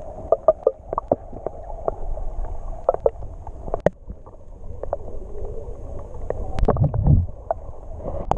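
Muffled underwater sound picked up by a submerged action camera: irregular clicks and knocks over a low rumble, which swells briefly about seven seconds in.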